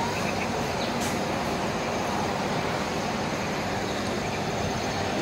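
Steady rushing outdoor noise with a faint high-pitched buzz above it.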